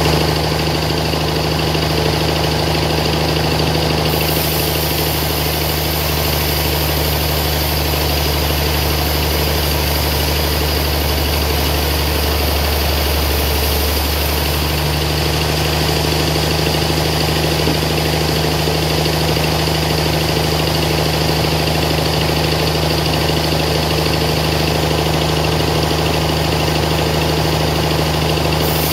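Log band sawmill running steadily, its band blade ripping through a large suar (rain tree) log. A steady machine hum with a higher hiss that strengthens about four seconds in.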